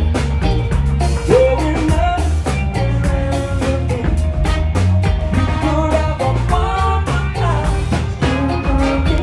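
Live band playing a song, with singing over guitar, bass and a drum kit.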